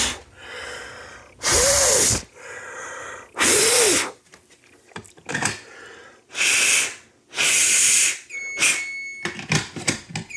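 Air blown in five short bursts to clear test smoke out of a smoke detector, with quieter noise between them. Near the end a steady high electronic alarm tone starts, stops after about a second, and comes back.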